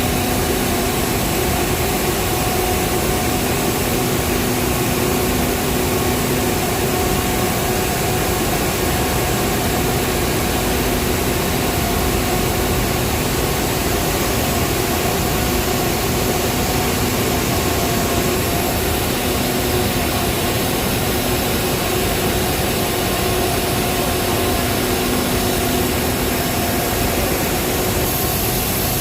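Power plant machinery running steadily: a constant loud mechanical rush with several steady hum tones layered over it and a faint high whine.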